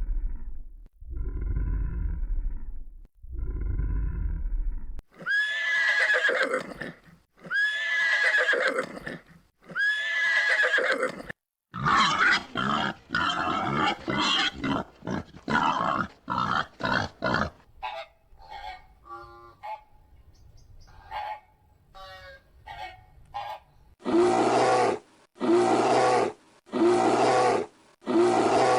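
A series of different farm animal calls, one kind after another, each call repeated several times. The first three are low, the next three higher and arching, then come faint short chirps and finally a run of identical, sharply cut calls.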